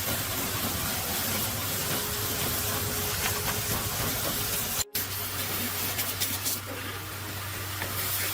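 A steady hiss, cut off briefly by a sudden dropout about five seconds in.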